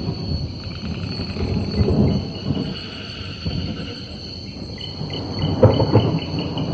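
Tropical rainforest night ambience: insects keep up a steady high-pitched buzz over low, rolling rumbles of thunder. A rapid pulsing call joins near the end.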